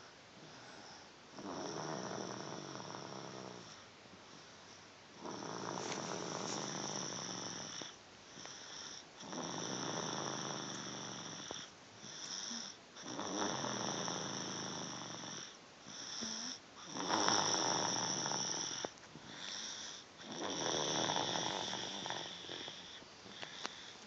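A sleeping toddler snoring, one snore on each breath, repeating about every three to four seconds.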